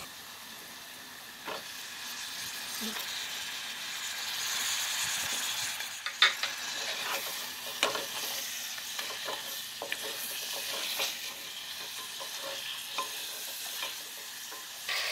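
Mutton pieces sizzling in hot oil and spice paste in a pressure cooker, stirred with a wooden spatula that knocks and scrapes against the pot every so often. The sizzle grows stronger about four seconds in.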